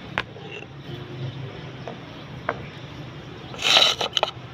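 Heavy round stone pestle knocking against a stone mortar with a few light clicks, then a short, loud scrape and two quick knocks near the end as the stone is lifted out and set down.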